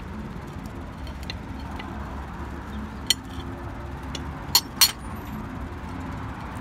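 Metal butter knife clinking against a china plate: one sharp clink about three seconds in, then two more in quick succession about a second and a half later, over a steady low room murmur.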